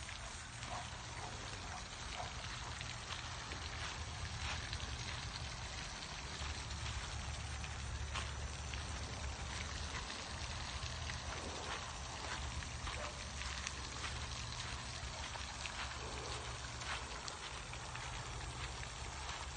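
Steady crackly rustle of footsteps and legs brushing through grass, with a low wind rumble on the phone's microphone.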